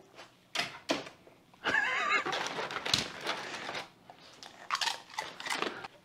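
Crinkling and crunching of a dog treat being handled, in several bursts, with a brief wavering pitched sound about two seconds in.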